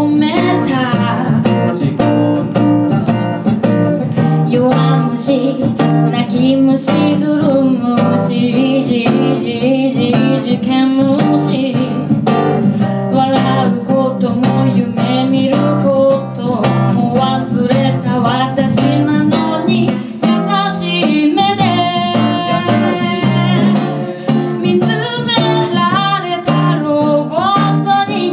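A woman singing live into a microphone, accompanied by a nylon-string classical guitar.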